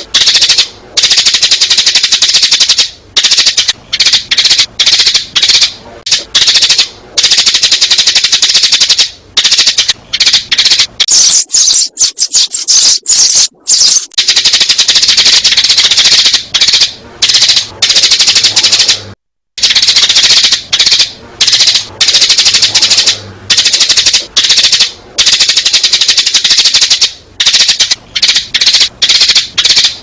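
Sparrows chirping loudly in a rapid, nearly unbroken stream of short, high chirps, with one brief break about two-thirds of the way through.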